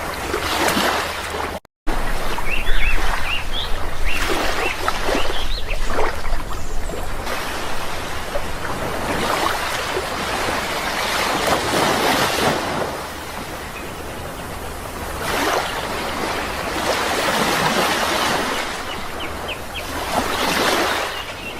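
Sea waves washing in and out, swelling and easing every few seconds, with a few brief high bird chirps. The sound cuts out for a split second near the start.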